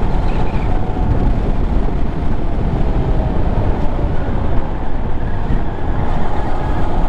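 Honda Monkey 125's single-cylinder engine running steadily while riding, under heavy wind noise on the microphone.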